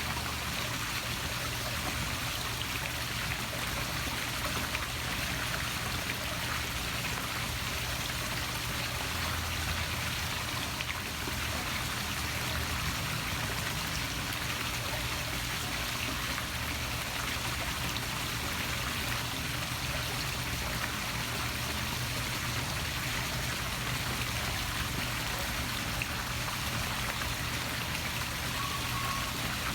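Poolside waterfall splashing steadily into pool water, an even, unbroken rush of falling water.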